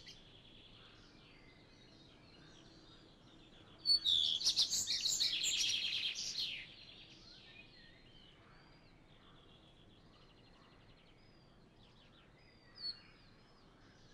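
Small songbirds chirping outdoors, with one loud trilling song about four seconds in that lasts two to three seconds, and scattered faint high calls around it.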